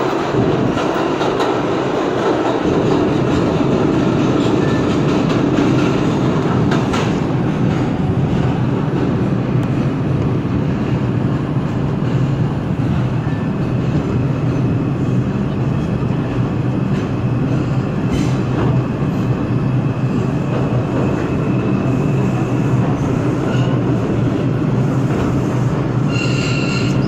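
New York City subway 4 train running at speed through a tunnel, heard from inside the car: a steady loud rumble of wheels on rails with a faint high wheel squeal over it.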